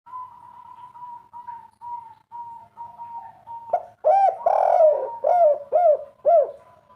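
Spotted dove cooing: a loud run of about six arching coo notes in the second half, after a fainter string of short, even-pitched notes.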